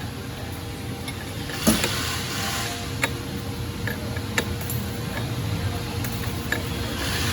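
A few sharp metallic clicks and knocks, roughly one every second or so, from work on the top nut of the drive-chain tensioner bolt as it is backed off, over a steady hum.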